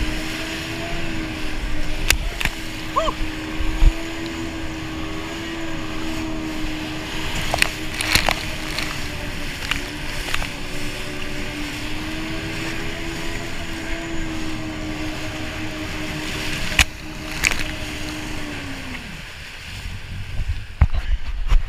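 Yamaha WaveRunner jet ski engine running at steady high revs while the craft crosses choppy water, with constant spray and wind hiss and several sharp slaps of the hull on the waves. About nineteen seconds in, the engine note drops away as the throttle comes off.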